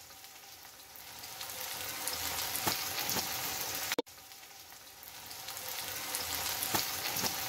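Chopped onions frying in hot oil in a kadai: a steady sizzle with occasional crackles, growing louder over the first couple of seconds. It cuts off abruptly about four seconds in, then starts again and builds up.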